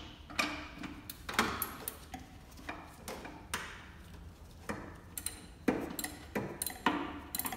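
Ratchet with a 12 mm extended socket clicking and clinking against metal in short, irregular strokes, some clinks ringing briefly, while working loose a clutch master cylinder mounting bolt.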